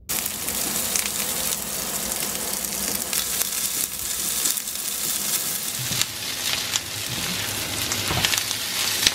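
Diced onion and garlic sizzling in oil in a nonstick frying pan over high heat. A silicone spatula stirs them, with a few light clicks and scrapes against the pan.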